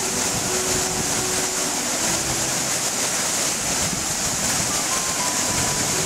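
Cascading waterfall rushing steadily down a sloping rock face, a loud, even hiss of white water; the falls are carrying a lot of water.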